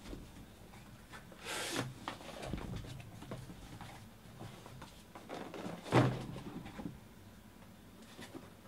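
Cardboard shipping case being opened and sealed card boxes being handled out of it: a short scraping slide of cardboard about one and a half seconds in, and a thump about six seconds in as boxes are set down on the table, with light tapping and rustling between.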